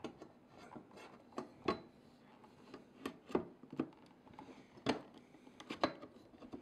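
AquaRay tile LED light being slid onto the aluminium MountaRay rails: irregular faint clicks and knocks with light scraping as the light's fitting catches and rubs along the rail channel.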